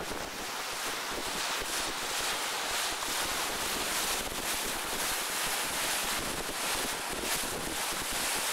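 Steady wind buffeting the microphone on the deck of a moving boat, with water rushing along the hull.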